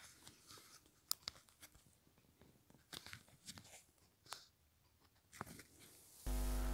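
Near silence with a few faint, scattered clicks, then a steady electrical mains hum cuts in abruptly near the end.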